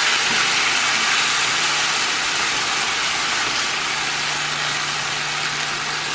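Buffalo sauce and chicken pieces sizzling in a hot frying pan: a loud, steady hiss from the sauce as it cooks down.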